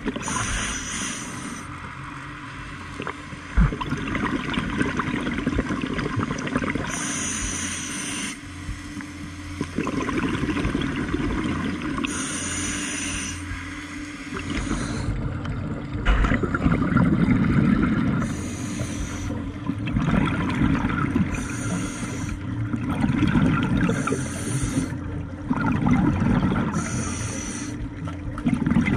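Scuba diver breathing through a regulator underwater: a short hissing inhalation every few seconds, each followed by a rumbling, bubbling exhalation. The breaths come faster in the second half.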